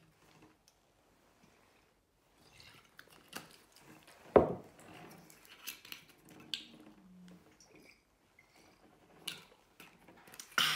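Glass liquor bottles being handled: screw caps twisted and a bottle knocked down onto a table about four seconds in, the loudest sound, with a few lighter clinks and taps around it.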